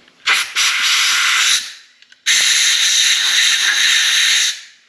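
Compressed-air blow gun blasting twice, for about a second and a half and then about two seconds, with a short third burst starting at the very end. It is blowing brake cleaner and metal swarf out of a freshly tapped head-bolt hole to leave it clean and dry for a thread insert.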